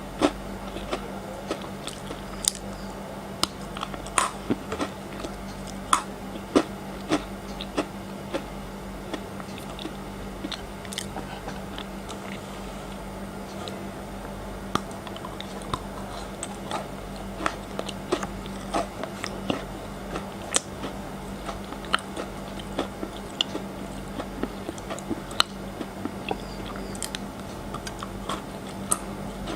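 Close-miked biting and chewing of frozen chocolate: sharp, irregular crunches and clicks, most frequent in the first several seconds, over a steady low hum.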